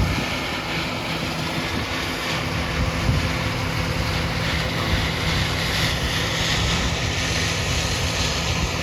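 A vehicle engine running steadily, heard from inside the cab, with a low hum under a steady rushing noise.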